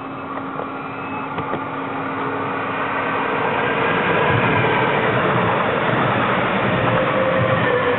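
Stadler FLIRT electric multiple unit running along the platform track past the listener. It grows louder over the first few seconds as it draws near, then holds a steady rumble of wheels on rail with a faint electric motor whine as it runs alongside.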